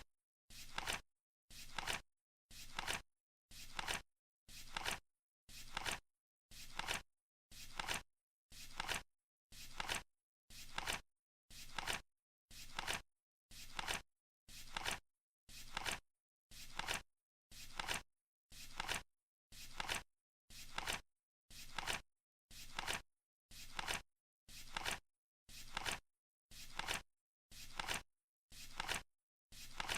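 Flip-clock flap sound, one short papery flip every second, ticking off the countdown's seconds. Each flip builds briefly and cuts off, with silence between.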